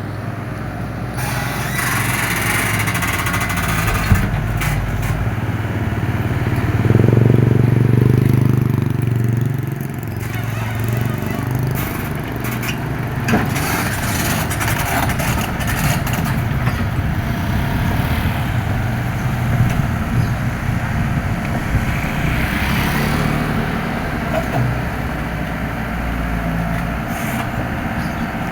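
Komatsu excavator's diesel engine running steadily, swelling louder for a few seconds about seven seconds in, with a few sharp knocks along the way.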